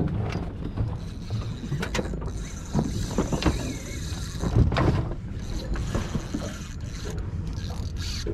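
Wind rumbling on the microphone aboard a small open boat at sea, with scattered knocks and clicks and a thin hiss about two to four seconds in.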